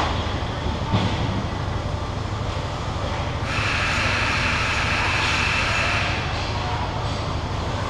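Steady low rumbling hum of indoor ice-rink background noise. From a bit past the middle, a brighter hiss swells in for about two and a half seconds, then drops back.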